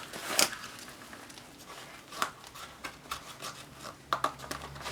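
Handling of a nylon magazine pouch on a plate carrier's webbing: scattered rustles and a few sharp clicks as its attachment straps are bent down and pressed into place. A faint low hum comes in near the end.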